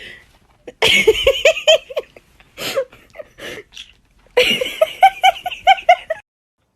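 Laughter in two bouts of rapid, evenly repeated ha-ha notes, the second bout cutting off abruptly.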